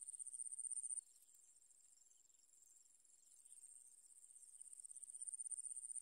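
Insect's high, rapidly pulsing buzz that swells and stops abruptly about a second in, then starts again softly and swells until it is loudest near the end.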